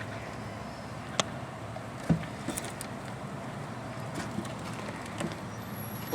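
A few light knocks and clicks from hive equipment being handled, over a steady background hum.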